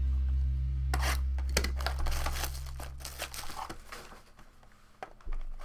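Plastic shrink-wrap crinkling and tearing in irregular rustles and rips as a hand works it off a sealed trading-card box. A low hum fades out over the first three seconds or so.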